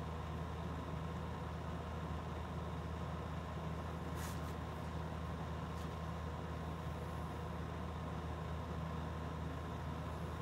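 Steady low hum of room noise, with a faint steady high tone over it; a light click about four seconds in and a fainter one near six seconds.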